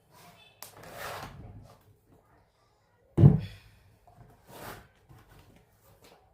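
Handling noises from a wooden speaker cabinet being worked on: a click and some scraping, then one heavy thump about three seconds in, with a softer knock later.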